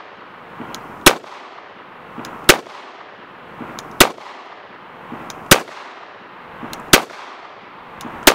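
Ruger-57 pistol firing 5.7x28mm rounds: six shots in a slow, even string, about one and a half seconds apart, each a sharp crack with a short ring-out after it.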